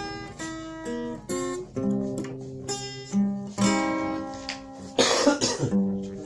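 Acoustic guitar played with single picked notes that ring and fade. About five seconds in, a short fit of coughing cuts across it, the loudest sound in the stretch.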